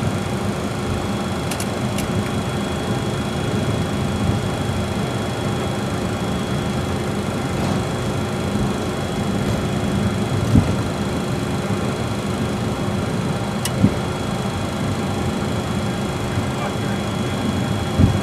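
Steady cockpit noise of a Bombardier Challenger business jet taxiing: a low engine rumble under a constant high whine, with a few short thumps from the rolling aircraft.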